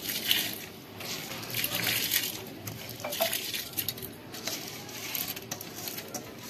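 Soaked biryani rice being tipped from a bowl into a pot of boiling water, with irregular clinks and scrapes of metal utensils and dishes.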